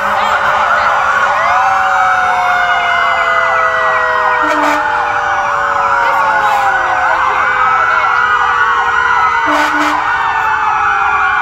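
Several emergency-vehicle sirens from departing fire trucks wailing and yelping at once, their rising and falling tones overlapping, with one long tone slowly dropping in pitch. Two short, low honks sound about five seconds apart.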